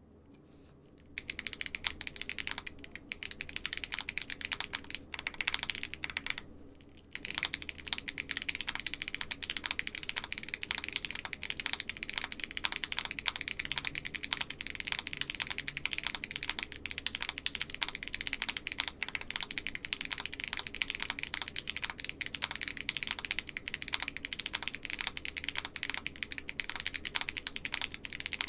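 Typing on a Keychron Q4 aluminium keyboard with Haimu x Geon HG White tactile switches and no dampening foam inside: a fast, continuous run of key clacks. It starts about a second in, with a short pause around six or seven seconds in.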